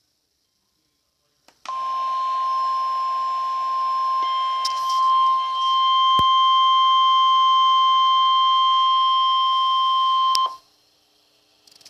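NOAA Weather Radio warning alarm tone, the steady single high tone of about 1050 Hz, sounding for about nine seconds over radio hiss and then cutting off. It is the weekly test of the receiver's warning alarm feature.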